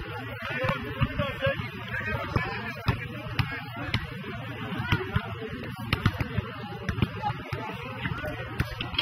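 Background chatter from spectators at an outdoor basketball court, with scattered sharp thuds of a basketball bouncing on the asphalt.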